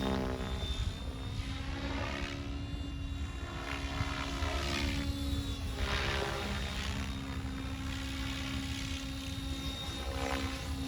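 Oxy 5 HF electric RC helicopter in flight, its rotor and motor running at a steady governed headspeed, with a whooshing that sweeps up and down as the heli moves through the air.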